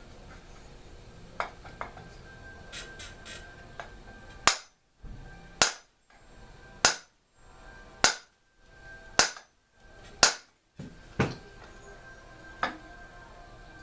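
Hammer blows on metal parts of an old Homelite chainsaw during teardown: a few light taps, then six hard strikes about a second apart, followed by two lighter ones.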